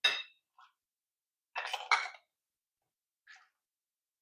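A spoon clinking and scraping against a ceramic bowl and the rim of a small electric cooking pot as a mixture is spooned across: a short ringing clink at the start, a louder pair of knocks about two seconds in, and a couple of faint taps between.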